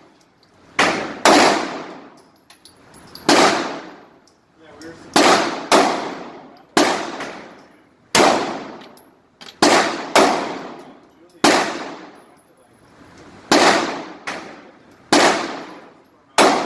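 Handgun shots fired one at a time, about a dozen at irregular gaps of half a second to two seconds. Each sharp crack is followed by a long echo off the walls of an indoor range.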